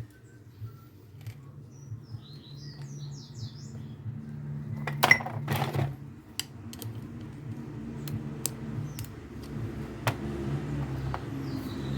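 Sharp metallic clicks and knocks of starter motor parts being handled and fitted together, the loudest a pair of knocks about five seconds in. A bird chirps briefly a few seconds in, over a steady low hum.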